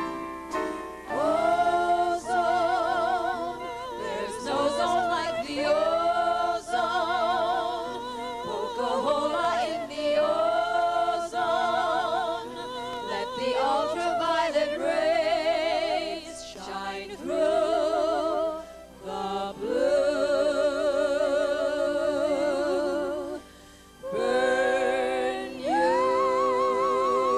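Women's voices singing in long held phrases with heavy vibrato, several voices at once. Near the end a single voice holds one long note.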